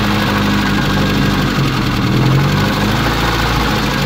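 Tavria engine idling steadily with a knock from inside, which the men take for a failing camshaft; they judge the engine will not hold out.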